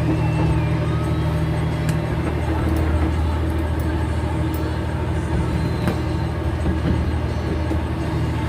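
Steady low drone of a fishing boat's engine running, with a few faint clicks over it.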